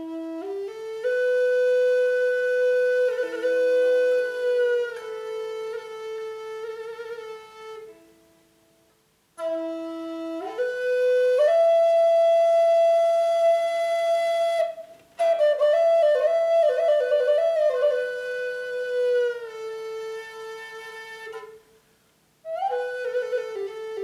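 End-blown bamboo flute playing long held notes with slow bends and a few quick ornaments. The notes come in phrases, with short breaks about 8, 15 and 22 seconds in.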